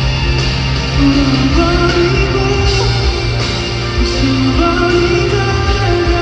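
Live band music: a pop-rock song played loud and steady, with a melody of held notes over a sustained bass line.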